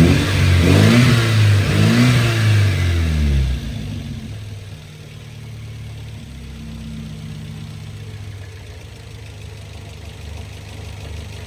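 The newly replaced engine of a 1993 Nissan 240SX is revved in a few quick rises and falls. About three and a half seconds in it drops back to a steady, stable idle.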